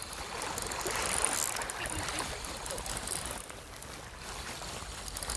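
Seawater sloshing and splashing at the rocks' edge while a Shimano Stella C3000MHG spinning reel is wound in, bringing a hooked rockfish to shore.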